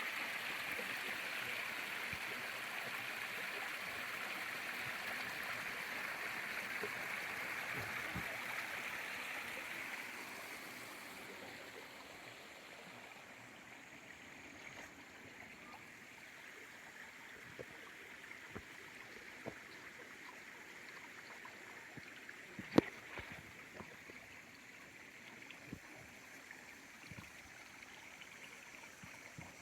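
Small garden waterfall: water splashing and trickling steadily, dropping to a softer trickle after about ten seconds, with scattered small drips and one sharp tick about two-thirds of the way through.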